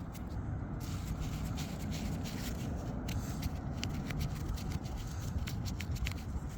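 Fingers rubbing and handling a small freshly dug metal find, giving a dry crackling scrape of many small clicks as soil is worked off it, over a steady low rumble.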